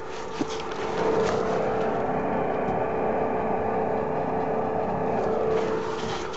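Gas furnace exhaust venting outdoors: the fixed-speed draft inducer pushing flue gas out the vent pipe as a steady rushing blow over a constant hum, louder from about a second in and easing near the end. The furnace is firing in heating mode on second stage.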